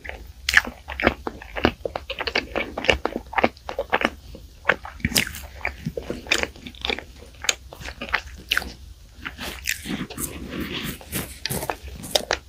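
Close-miked chewing of mugwort mammoth bread, a dense run of crunches and mouth clicks.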